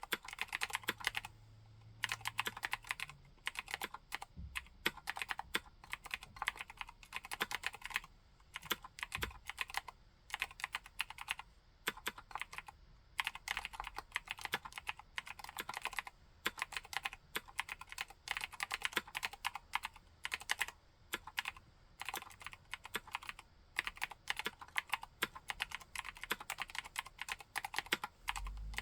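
Typing on a 60% mechanical keyboard with Cherry MX White switches and MT3-profile keycaps: fast runs of key clacks broken by short pauses.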